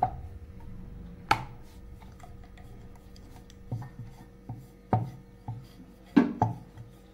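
Rolling pin working over a flat round of naan dough on a wooden board (chakla), with a soft rubbing sound and several sharp knocks of the pin against the board, most of them in the second half.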